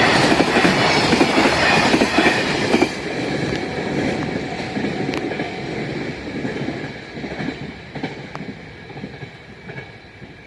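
Freight wagons of a train hauled by an EF66 electric locomotive rolling past with a clickety-clack of wheels over the rail joints. The sound is loud for about the first three seconds, then fades steadily as the train moves away.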